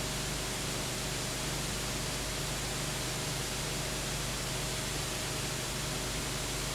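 Steady hiss with a low, steady hum underneath and nothing else: the empty soundtrack of a silent home-movie film transfer.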